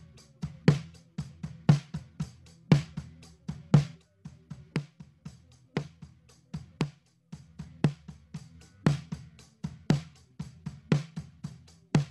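Snare drum track from a live band recording, heard on its own: a sharp snare hit about once a second, with quieter hits and low drum-kit bleed between them. It runs through a Telefunken TAB V76 tube preamp and U73 compressor emulation.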